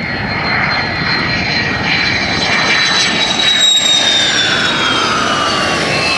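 Single-engine F-16 Fighting Falcon jet on its landing approach with gear down: a steady jet roar with a high engine whine that slides down in pitch, growing louder toward the middle.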